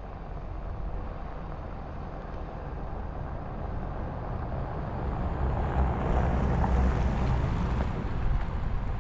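Turbocharged Mini Cooper with a K&N aftermarket intake driving, engine and intake noise mixed with wind and road rumble, growing louder about halfway through as it pulls harder.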